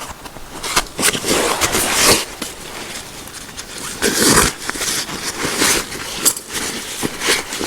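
Irregular clicks, knocks and scraping of gear being handled, with a louder scrape or rustle about four seconds in.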